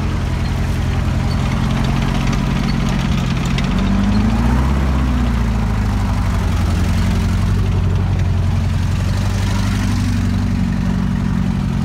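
M4 Sherman tank driving past on a dirt road, its engine running with a steady deep drone. The engine is loudest and shifts in pitch as the tank passes close, about four seconds in.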